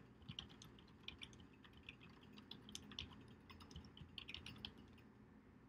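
Faint computer keyboard typing: quick, irregular key clicks as a line of text is typed, stopping near the end.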